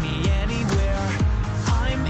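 Background pop music with a steady beat: a deep, falling kick drum about twice a second under a melody.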